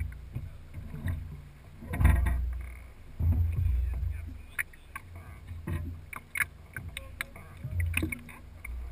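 Small fishing boat on the water: uneven low rumbling thumps, loudest about two seconds in and again from about three to four seconds in, with scattered small clicks and knocks.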